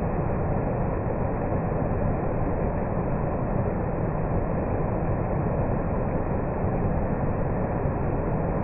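Rocky stream rushing over small cascades, with a waterfall behind: a steady, even rush of water, sounding dull and muffled.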